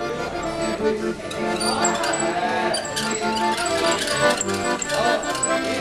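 Music: an instrumental tune with held, sustained notes.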